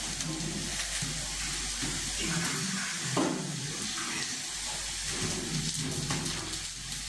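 Kitchen noise as tortillas cook on a metal comal over a gas burner: a steady hiss with a low hum, and muffled voices in the background.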